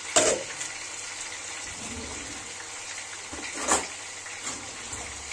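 A glass pot lid clinks down onto the countertop just after the start, and about three and a half seconds in a kitchen drawer is pulled open with its utensils rattling, over a steady low hiss.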